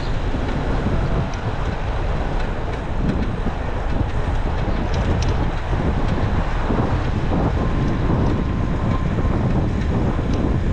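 Wind buffeting the microphone on a moving bicycle: a steady, loud rumble with a few faint ticks from the bike.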